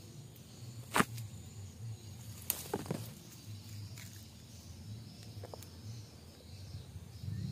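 Handling noise from a handheld phone moving among shrub branches: a low rumble with a few sharp clicks, the loudest about a second in and two more around two and a half to three seconds in.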